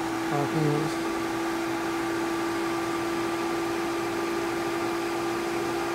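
Pool pump motor running steadily: a constant hum with a fainter, higher whine over an even rush of noise.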